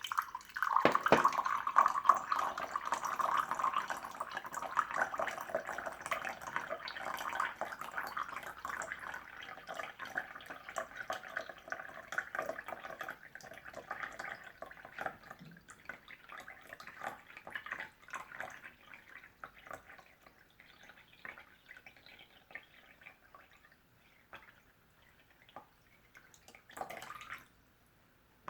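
Bottled water poured into a cup, first in a full stream and then slowing to a trickle and scattered drips that fade out. A short noise comes near the end.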